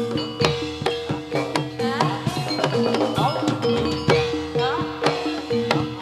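Live Javanese gamelan music accompanying a jathilan dance: rapid hand-drum strokes, some bending upward in pitch, over ringing metallophone notes in a steady, driving beat.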